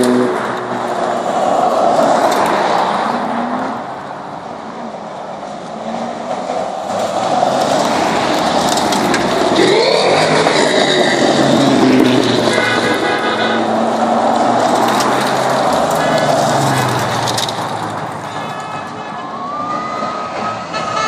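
A procession of sports and performance cars driving past one after another, engines swelling and fading as each goes by, one revving up about halfway through. A horn toots briefly a couple of times.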